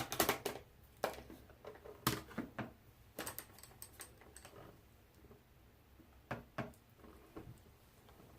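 Irregular light clicks and taps of makeup products and brushes being handled, in small clusters with short gaps between them.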